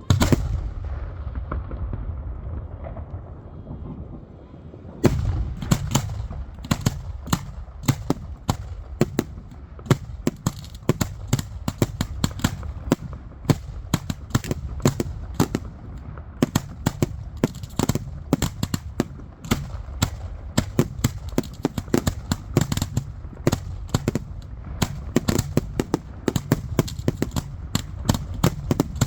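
Fireworks going off: one loud bang that rumbles away, then from about five seconds in a rapid, uneven string of sharp cracks and bangs, several a second, that keeps going.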